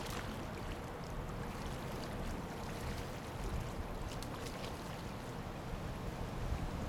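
Wind buffeting the microphone in a steady low rumble, over the flow of the river.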